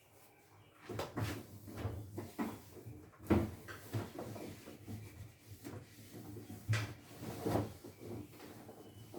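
Irregular plastic knocks and rubbing as a refrigerator's inside and its plastic parts are wiped down with a soapy cloth, with two louder knocks about three and seven seconds in.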